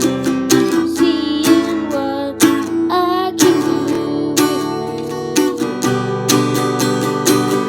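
Acoustic guitar strummed in chords, with a voice singing over the first few seconds; after that the guitar plays on alone.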